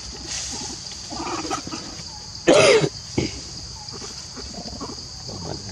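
A short, loud animal call about two and a half seconds in, with softer brief calls before and after it, over a steady high-pitched hiss.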